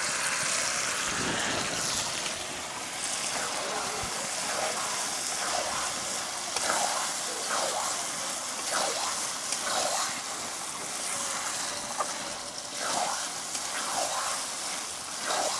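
Turtle meat frying in hot oil and masala in an aluminium karahi, a steady sizzle, while a metal spatula stirs it with repeated scrapes about once a second.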